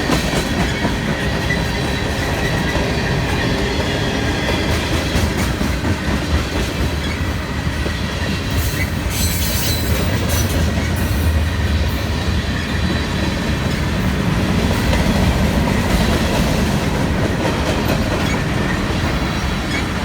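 CSX freight train's cars rolling past at close range: a steady rumble with wheels clicking over rail joints and a thin, steady high squeal from the wheels.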